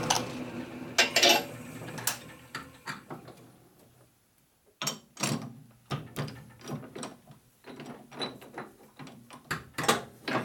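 Metal lathe running down after it is switched off, with a few knocks. Then a chuck key clicks and knocks against the three-jaw chuck several times as the jaws are worked.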